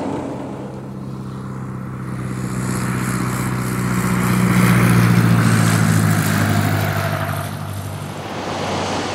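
Single-engine floatplane's piston engine and propeller droning as it flies low over the water, growing louder to a peak about five seconds in, then fading.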